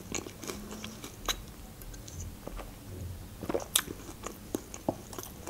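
A person chewing food close to the microphone with mouth closed: soft, scattered wet mouth clicks and smacks.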